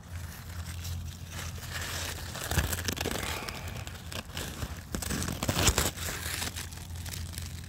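Cucumber leaves and vines rustling and crinkling as a hand pushes them apart, in uneven crackles that are loudest about two and a half seconds in and again near six seconds, over a steady low hum.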